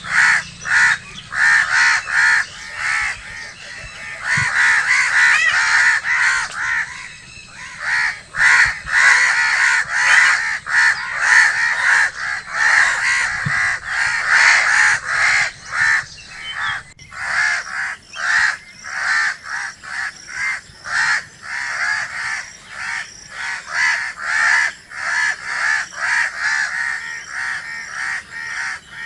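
Crows cawing: a long, dense run of harsh caws in quick succession, several calls a second.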